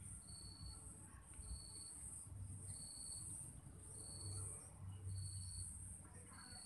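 Faint insects chirping in a regular rhythm: a high buzzing pulse and a shorter thin tone repeat about every second and a quarter, over a low steady hum.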